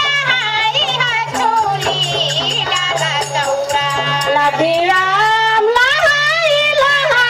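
Tharu Jhumra folk song: a high voice singing an ornamented, gliding melody over a steady drum beat and a low sustained accompaniment.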